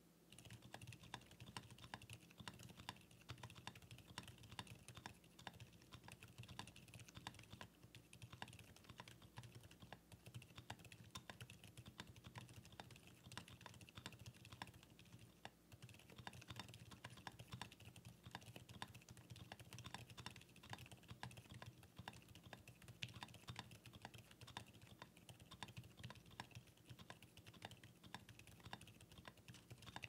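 Quiet, continuous fast touch typing on a Mode Eighty tenkeyless keyboard fitted with lubed Outemu Silent Sky tactile switches, whose silicone-dampened stems keep each keystroke muted. The typing starts a moment in and keeps an even, rapid pace.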